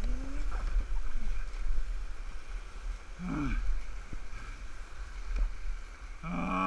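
Whitewater rushing and splashing around a small paddled boat running a rapid, with wind buffeting the microphone. A few short voice sounds break through, the clearest near the end.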